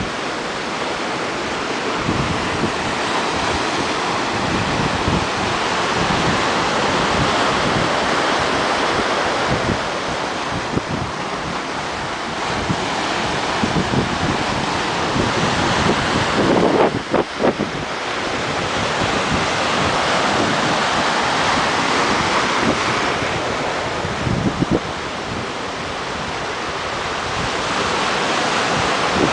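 Ocean surf breaking and washing up over a rocky cobble shore, its rush swelling and ebbing with each set of waves. Wind buffets the microphone, with a few low thumps a little past halfway and again later.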